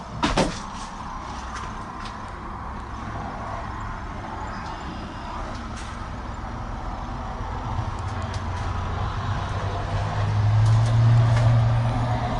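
Loader backhoe's diesel engine running steadily, with a sharp clank about half a second in; the engine note grows louder from about eight seconds in and is loudest around eleven seconds.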